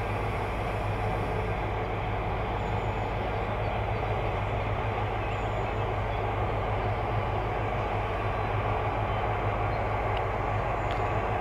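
Steady hum and whir of a pair of FS E.405 electric locomotives running, mostly their cooling blowers and electrical equipment, with a strong low hum underneath.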